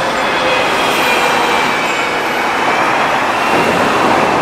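City street traffic dominated by a passing tram: steady rolling noise with a faint high whine from its wheels and motor on the rails.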